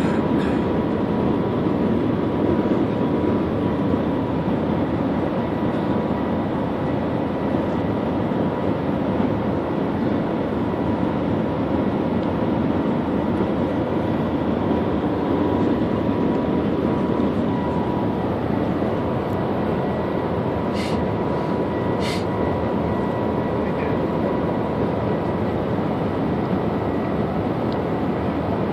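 Steady rushing cabin noise inside the Shanghai Maglev train cruising at high speed, with a faint steady whine that fades out a little past halfway. Two short clicks come close together in the last third.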